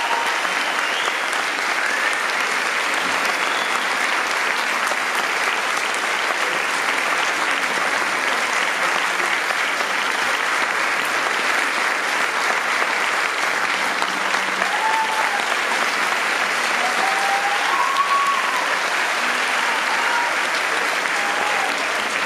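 Audience applauding steadily, with a few short cheering voices rising above the clapping.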